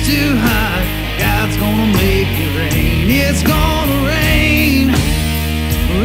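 Rock music with guitar and a steady drum beat.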